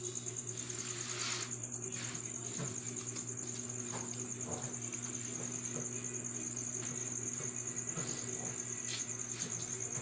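Steady high-pitched insect trill over a low steady hum, with a few faint soft sounds of hands rubbing and pressing on an oiled bare back.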